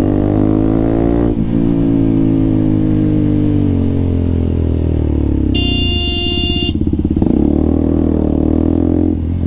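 KTM RC200's single-cylinder engine running through a loud aftermarket full-system exhaust while being ridden, its note easing down and then climbing again. A vehicle horn sounds for about a second midway.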